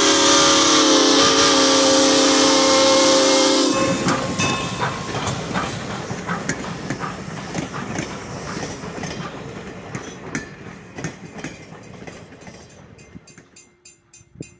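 Steam whistle of Norfolk and Western #475, an M-class 4-8-0 steam locomotive, blowing one long blast of several tones at once over hissing steam, cutting off suddenly about four seconds in. Then the passenger cars' wheels clack rapidly over the rail joints as the train rolls past, fading away.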